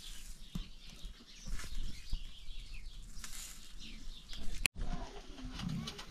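Birds chirping, with a few sharp knocks. The sound drops out abruptly for a moment about three-quarters of the way through.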